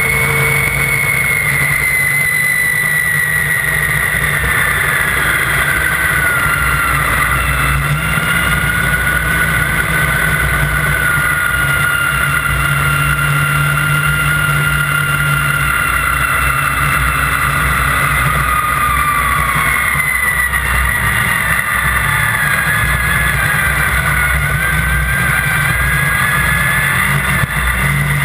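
Snowmobile engine running hard at speed, a steady loud drone with a high whine that slowly sinks and climbs in pitch as the revs change.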